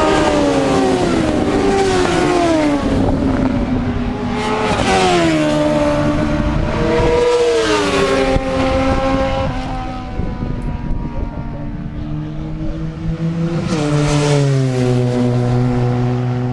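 Several sport motorcycles pass at racing speed one after another, each engine note dropping in pitch as it goes by. The last pass comes about 14 seconds in, followed by a steadier, lower engine note.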